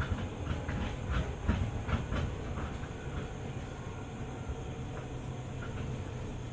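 Running sound inside a JR 205 series 600 electric multiple unit: a quick run of wheel clacks over the track in the first couple of seconds, then a steady rumble of the train rolling along with a low motor hum.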